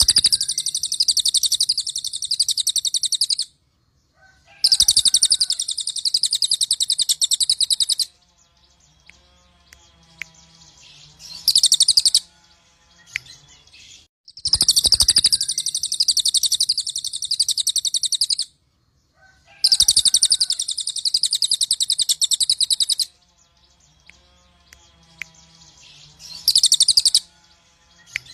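Crested jay (cililin) giving loud, fast rattling calls. There are four long bursts of three to four seconds each, and a shorter burst after every second long one, with brief pauses between.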